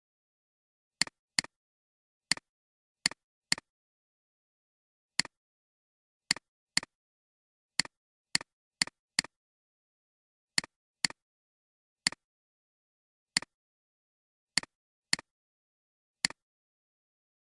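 About twenty short, sharp clicks at irregular intervals, some coming in quick pairs, against dead silence.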